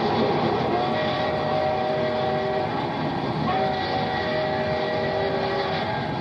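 Moving train rumbling steadily on the film soundtrack, with its whistle sounding two long chord-like blasts.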